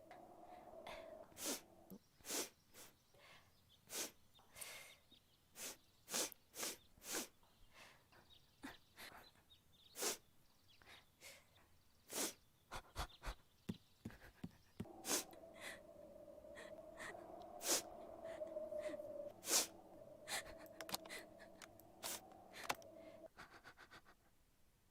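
A person's short, sharp breaths and mouth noises, spliced one after another, at times several within a second. A faint steady hum runs underneath from about the middle until shortly before the end.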